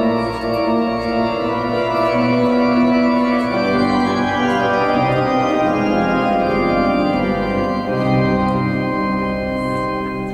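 Large cathedral pipe organ, the organ of Liverpool Anglican Cathedral, playing sustained full chords, with a change of harmony about three and a half seconds in.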